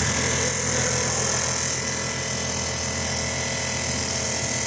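Industrial gantry sewing machine with a 360° rotating head stitching heavy quilted jacket material at full speed: a steady, rapid stitching with a constant motor whine.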